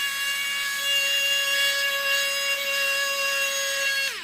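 Electric suction fan of a wall-climbing toy car running with a steady high whine over a rushing hiss, then switched off near the end, its pitch falling as it spins down.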